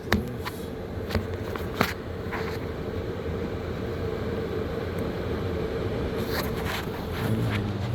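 Air-conditioning unit running with a steady low hum, a few sharp clicks in the first two seconds, and the hum growing louder about seven seconds in.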